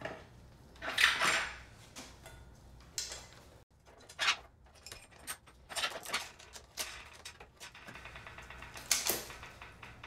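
Irregular metal clinks, knocks and scraping rustles as a Rotor ALDHU road crank with a Power2Max spider is handled and its axle is pushed through the bike's freshly greased bottom bracket bearings.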